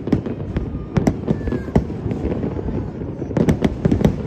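Fireworks display: sharp bangs and cracks going off irregularly over a continuous low rumble of bursts, with a quick cluster of bangs near the end.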